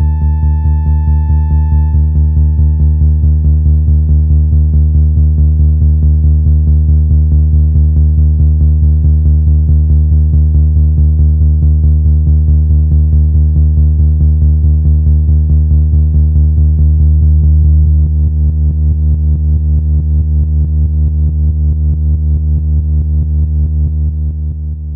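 Background music: a low synthesizer drone with a steady pulsing beat, fading out near the end.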